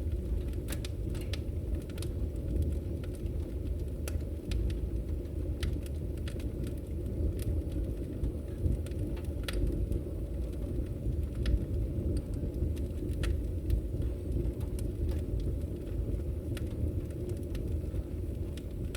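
Bonfire of burning wood crackling, with irregular sharp pops and snaps over a steady low rumble.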